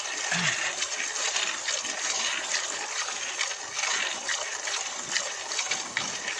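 A water buffalo being milked by hand: streams of milk squirting from the teats into a metal pot of frothy milk, in a steady rhythm of hissing squirts.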